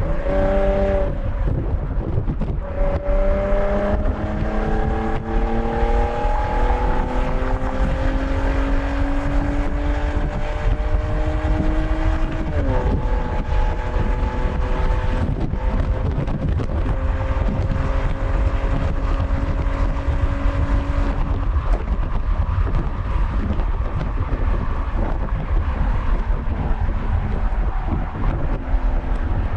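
2008 Porsche Cayenne 957's stock-exhaust 3.6-litre VR6 engine pulling under acceleration, its pitch climbing steadily through the gears. There is a gear change about two seconds in and another upshift about twelve seconds in, after which the pitch climbs more slowly. Wind and road noise run under it.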